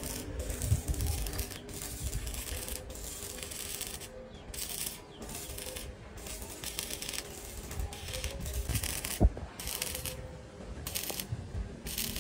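Electric arc welding crackling in a series of short bursts, each lasting about half a second to a second with brief breaks between. A single sharp knock about nine seconds in.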